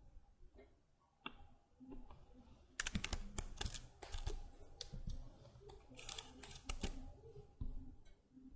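Lock pick working the pins inside a BRICARD cylinder lock: irregular small metallic clicks, in quick clusters about three seconds in and again around six to seven seconds.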